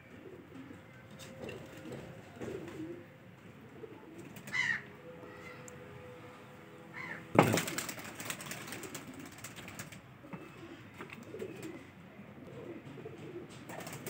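Pigeons cooing softly off and on, with a short higher bird chirp now and then. About seven seconds in, a brief rustling burst is the loudest sound.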